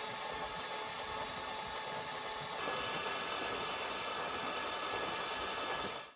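Mercruiser 350 Magnum 5.7 L V8 marine engine running steadily during a test run on a flushing water hose. It gets louder about two and a half seconds in.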